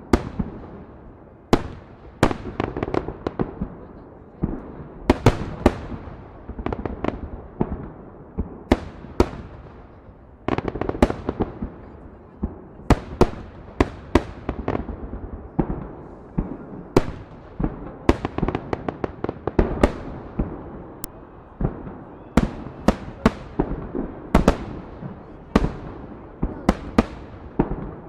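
Festive fireworks salute: a dense series of loud bangs from shells bursting overhead, irregularly spaced and often in quick clusters, each one trailing off into a rumbling echo.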